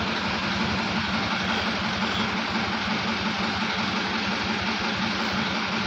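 Engine idling steadily, an even low hum with a fast regular pulse.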